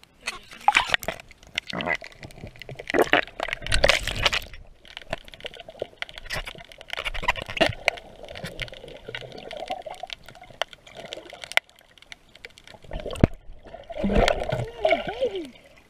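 Water splashing and sloshing around a submerged camera, heard muffled underwater, with bubbling and small knocks. Heavy splashing fills the first few seconds, then steadier muffled water noise, and another bout of splashing comes near the end.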